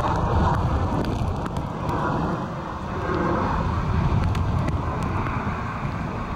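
Gusty storm wind buffeting the microphone in a heavy, uneven rumble, over the steady rush of surf breaking on the rocks.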